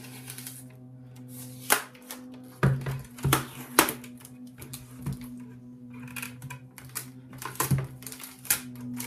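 Hands peeling packing tape off and handling the plastic frame of an M3D Micro 3D printer: a run of sharp clicks, knocks and short rips, loudest from about three to four seconds in and again near the end. Under it runs a steady low hum from a lawnmower being used to cut the grass.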